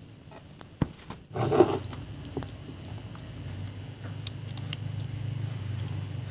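Handling of a small circuit board by hand: scattered light clicks and taps, with a sharp click about a second in and a short rustle just after it, over a low steady hum.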